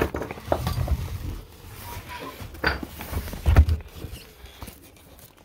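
Camera handling noise: cloth rubbing and bumping against the microphone, with a few scattered knocks, the loudest a little past halfway.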